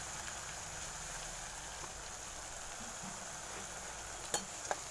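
Onion-tomato masala sizzling gently in a stainless steel pan on the stove: a soft, steady hiss. Two light clicks come near the end.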